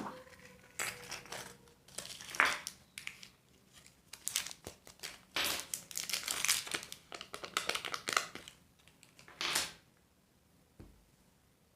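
Candy and surprise-egg wrappers crinkling as they are torn open and handled, in irregular bursts that stop about ten seconds in. A single small click follows near the end.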